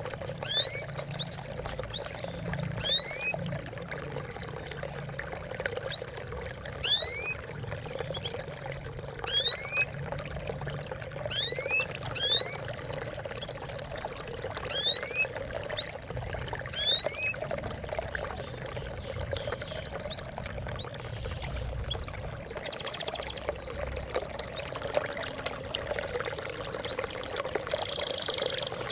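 Water trickling and splashing steadily, with small birds giving repeated short rising chirps over it and a couple of fast trills in the last few seconds.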